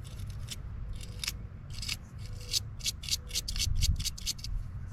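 Quick repeated scraping strokes, about three or four a second, as corrosion is scrubbed off the contacts of a truck's fuse box.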